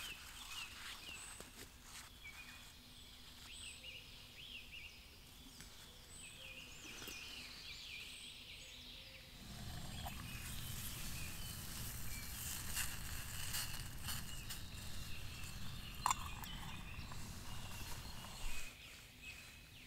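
Woodland birds singing, with many short chirps and trills. About halfway in, a steady low rushing noise starts and runs beneath them, with a sharp knock a few seconds later.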